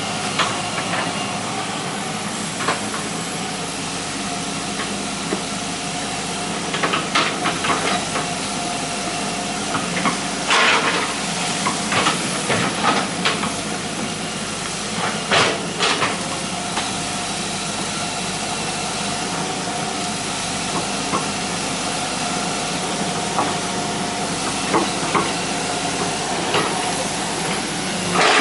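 Hitachi EX120 excavator's diesel engine running steadily as the machine digs, with sharp clanks and knocks from the working bucket several times, the loudest about ten to sixteen seconds in and again at the very end.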